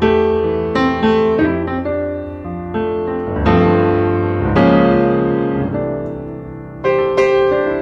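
Background piano music: a solo piano playing a gentle run of notes and chords.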